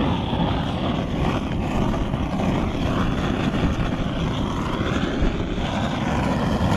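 Hand-held butane-propane canister blowtorch burning with a steady roar as its flame heats a black HDPE plastic patch being melted onto a cracked plastic canoe hull.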